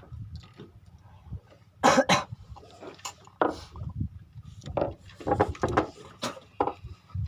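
A person coughing in a series of short bursts, the loudest pair about two seconds in and more scattered through the rest.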